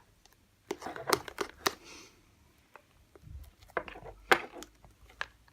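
Fluffy shaving-foam slime being mixed and worked by hand after borax activator is added, giving sharp sticky clicks and crackles in two clusters, one about a second in and another near the end.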